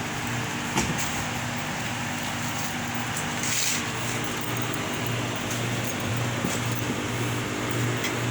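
Newly installed five-ton R410a high-efficiency air-conditioning condensing unit running on its commissioning test: a steady hum that pulses low and even, under the rush of its condenser fan. A short hiss comes about three and a half seconds in.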